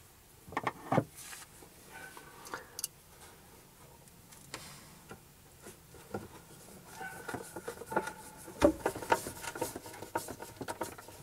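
Scattered light clicks and taps of screws being driven to fasten a piano hinge onto a cooktop cover, coming thicker and faster from about seven seconds in.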